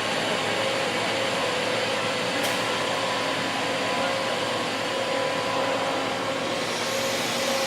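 HB150 CNC table boring machine running with a steady whirr and a steady hum; a high whine comes in and rises near the end.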